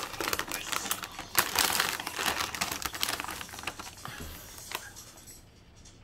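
Plastic snack bag crinkling and crackling as hands handle it; the rustling thins out and fades over the last second or two.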